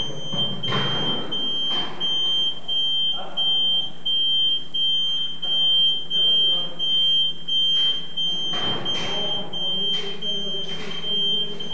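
Warning beeper of a hydraulic scissor platform lift sounding a high, continuous, regularly pulsing beep while the platform lowers, over a low steady hum.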